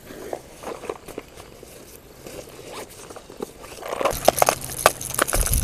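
Backpack zipper being opened and the bag rummaged through. From about four seconds in, louder rustling and a few sharp clicks as a clear plastic tackle box is handled.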